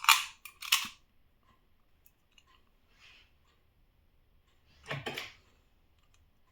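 Metal clicks and clacks of a CAWI Relox 1900 key safe lock and its keys being worked by hand: a quick run of sharp clicks at the start, then a short rattling scrape about five seconds in.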